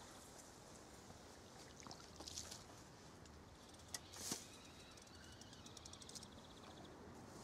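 Near silence by a river, broken by faint rustling about two seconds in, then a sharp click and a short swish of a feeder rod being cast about four seconds in.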